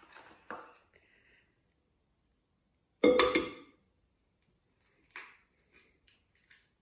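An egg knocked sharply against the rim of a glass mixing bowl to crack it: a double clink with a brief ring about three seconds in, followed by a few faint clicks of eggshell being handled.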